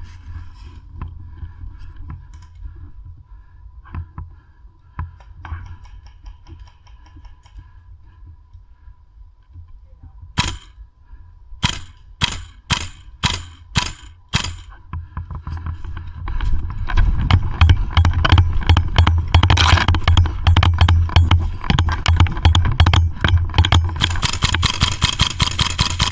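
A run of about seven sharp airsoft gun shots, about two a second over some four seconds. Then loud rumbling, crackling noise over the last ten seconds.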